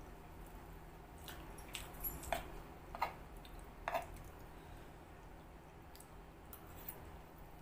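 Eating sounds of chewing a mouthful of chow mein noodles, with several sharp clicks between about one and four seconds in as a metal fork works the noodles on a clay plate.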